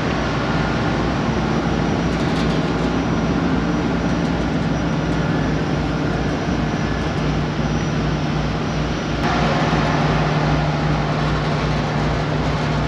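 Car ferry's engines droning steadily on the crossing, a constant low hum over a fast, even throb. A louder hiss joins about nine seconds in.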